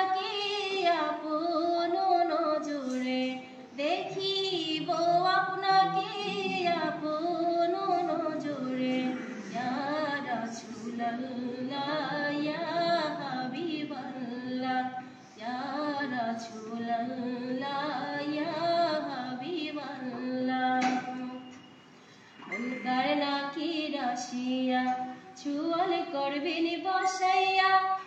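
A woman singing an Islamic devotional song (gojol) alone, with no instruments, in long gliding held notes; she breaks off for a breath about three quarters of the way through.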